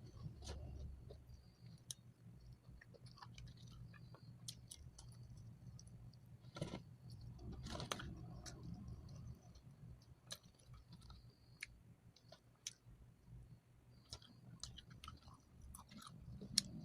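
A person chewing fried food, with many small wet mouth clicks and two louder crunchy bites about seven and eight seconds in.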